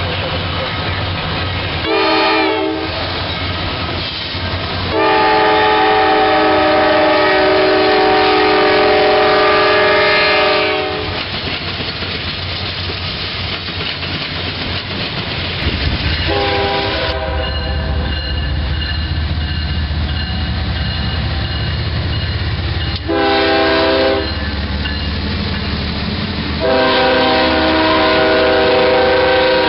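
Diesel freight locomotives sounding their air horns as they pass: a short blast about two seconds in, a long blast for about six seconds, two shorter blasts later, and another long blast near the end. Between the blasts comes the steady rumble and wheel clatter of the passing freight cars.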